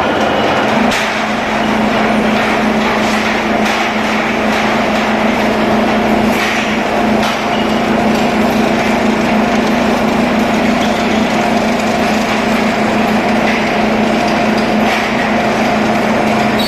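Steel rod straightening and cutting machine running steadily with a constant hum, the rod rattling through it, and a few sharp metallic clanks now and then.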